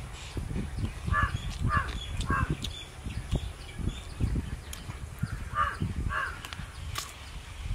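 A crow cawing in short runs, three caws about a second in and two more near the end, over close low thuds and rustling.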